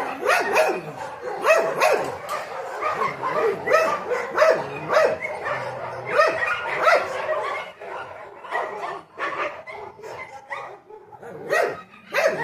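A dog barking and yipping in short, repeated calls, about two a second, easing off around eight seconds in and picking up again near the end.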